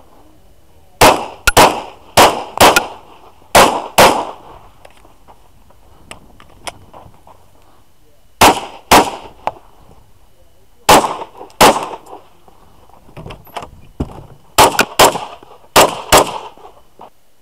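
Semi-automatic pistol shots in a fast string, mostly in quick pairs about half a second apart, with pauses of a few seconds between groups.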